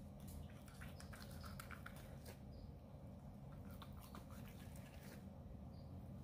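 Faint knife strokes slicing through a roasted turkey breast: small crackles and clicks as the blade cuts the skin and taps the plastic cutting board, over a low, steady background hum.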